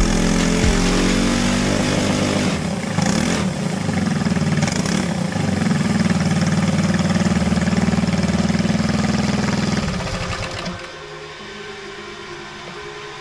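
Briggs & Stratton LO206 single-cylinder four-stroke kart engine running under load on a dyno: its pitch climbs over the first couple of seconds, then holds steady at high revs, and about ten seconds in it drops back to a quieter idle.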